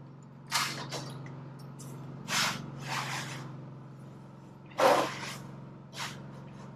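Aluminum trim metal being handled and worked: about six short scraping, swishing noises, the loudest about five seconds in, over a steady low hum.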